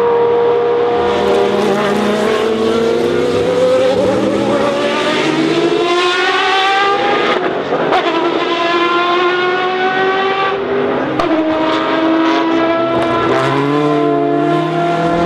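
Racing car engine revving hard as it accelerates through the gears. Its pitch climbs steadily, drops at an upshift about seven seconds in and again about eleven seconds in, then keeps rising.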